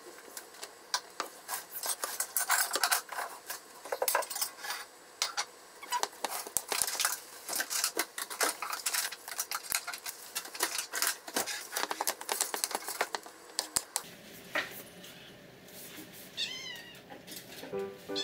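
A kitchen knife tapping and scraping on a wooden cutting board and a bowl as chopped burdock root is gathered into minced chicken, in dense, irregular clicks that thin out about two-thirds of the way through. Near the end a Munchkin cat gives a short meow.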